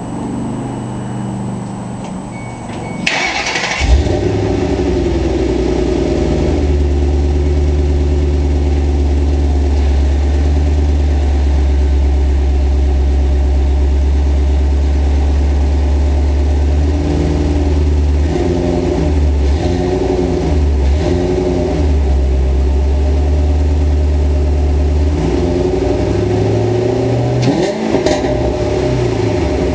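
Ford Mustang V8 with a Pypes catted X-pipe and Flowmaster American Thunder axle-back exhaust, cranked and started about three seconds in, then idling with throttle blips in two spells later on. The exhaust is raspy, which the owner puts partly down to an exhaust leak at the catalytic converters.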